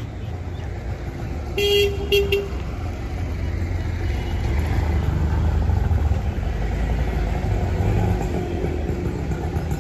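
Street traffic: a vehicle horn gives two short honks in quick succession about two seconds in, over the low rumble of an engine that grows louder through the middle and eases off near the end.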